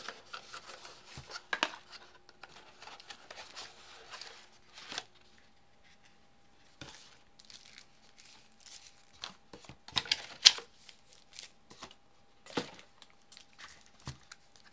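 Unboxing handling noise: a cardboard box being opened and tissue paper crinkling and rustling around the speaker as it is lifted out, with paper cards shuffled. Irregular rustles and a few sharper knocks, the loudest about ten seconds in.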